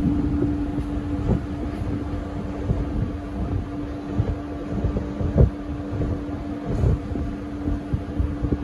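Steady machine hum: one constant tone over a low rumble, with a few short knocks, the clearest about five seconds in.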